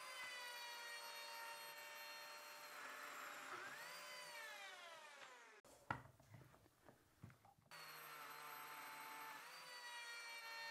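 Lamello Zeta P2 slot cutter and its dust extractor running, the motor's pitch dipping briefly as it plunges into the wood to cut slots. About halfway through the pitch slides down and the motor stops, followed by a couple of seconds of knocks, one of them sharp, from the wood being handled. Then the running resumes with another small dip under load.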